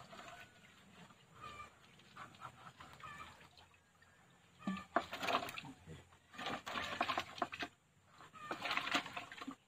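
Water splashing in a plastic bucket as live tilapia are emptied from a hand net and thrash about, in three splashy bursts about a second long from about five seconds in.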